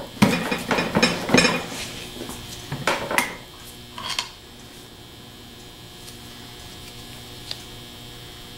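A long screwdriver prying the rear shaft seal out of a Delco 42MT starter's lever housing, with sharp metal scrapes and clicks over the first second and a half and again around three seconds. After that, only a faint steady hum remains.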